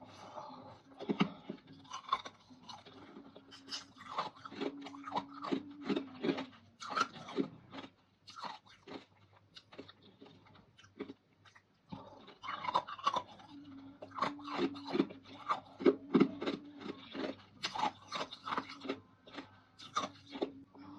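Crunchy chewing of dried fruit and vegetable pieces, many crisp crackles in two bouts with a quieter stretch in the middle.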